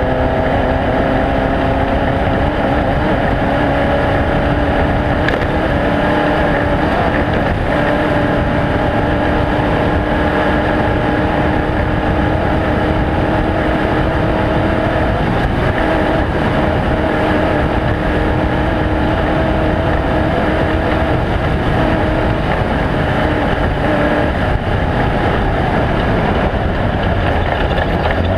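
Off-road race vehicle's engine running hard and steady, its note climbing slowly, over a loud rumble.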